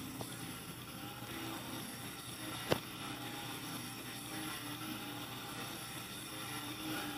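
Steady hiss and hum with faint snatches of music, as from a video played on a screen and picked up by a phone's microphone, with one sharp click about two and a half seconds in.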